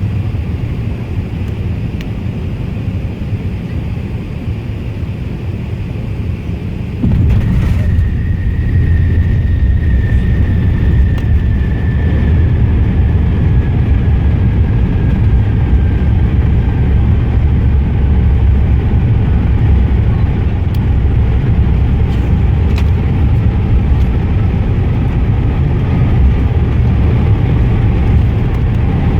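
Airbus A380 cabin noise during landing: a steady low rumble, then about seven seconds in a sudden jump to a louder rumble as the airliner touches down and rolls out on the runway, with a high whine slowly falling in pitch as it slows.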